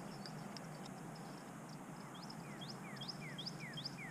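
A bird calling a quick run of repeated two-part notes, each a falling then a rising whistle, about three a second, starting about halfway through, over faint high chirping and a steady low outdoor background.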